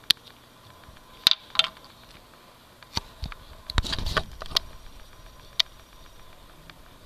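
Sharp plastic clicks and knocks from handling a dry erase marker: the cap being pulled off and set on the whiteboard's tray, with a short burst of handling noise about four seconds in.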